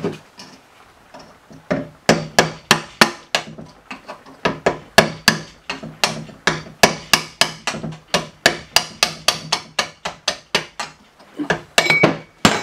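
A hammer repeatedly strikes a screwdriver used as a drift, knocking the steel spacer block out from between the ears of a steel lower control arm, with its new bushing freshly installed. The blows are sharp and metallic, about three a second. They start about two seconds in, pause briefly, and end with a few last blows near the end.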